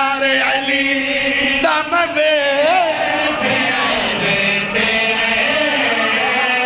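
A group of men chanting a devotional refrain together, one strong lead voice swaying and gliding in pitch over the sustained voices of the others.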